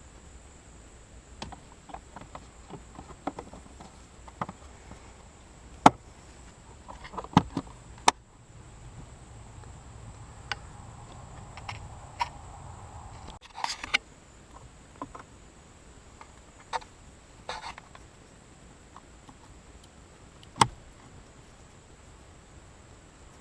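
Hands working plastic interior parts during a cabin air filter change: scattered light clicks and taps, a few sharp louder clicks, and short bursts of rustling.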